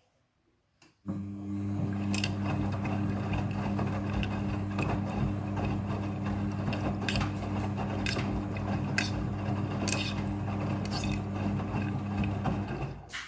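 Front-loading washing machine running during its rinse cycle: a steady motor hum with scattered clicks and rattles. It starts abruptly about a second in and cuts off suddenly near the end.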